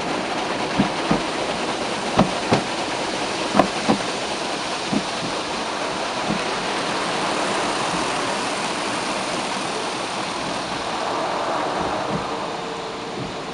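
Automatic car wash rinse jets drumming water onto the windshield and body, heard from inside the car as a steady rushing noise. A series of dull thumps on the body comes in the first few seconds, and a faint steady hum comes in near the end.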